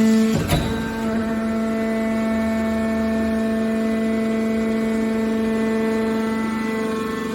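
Scrap metal push-out baler's hydraulic power unit running with a steady hum, with a single sharp knock about half a second in.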